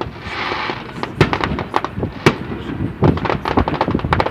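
Aerial fireworks going off: a rapid, irregular string of sharp pops and bangs, with a short hiss near the start.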